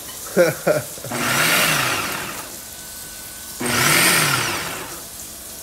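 Ninja countertop blender pulsing twice, its motor speeding up and then slowing each time. It is chopping a jar of hard avocado chunks and other guacamole ingredients that are not turning to mush.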